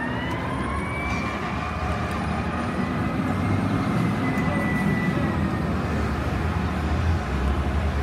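Fire truck siren wailing: the pitch rises, then holds and slowly falls, fading out about five seconds in. Underneath is a steady low rumble of engines and traffic that grows louder in the second half.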